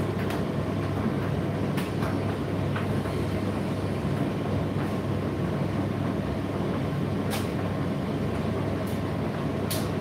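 Indesit IDC8T3 condenser tumble dryer running mid-cycle: a steady low motor and fan hum, with occasional sharp clicks from the tumbling load.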